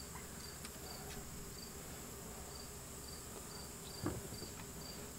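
Faint insect chorus: a steady high buzz, with short high chirps repeating about twice a second. A light knock sounds about four seconds in.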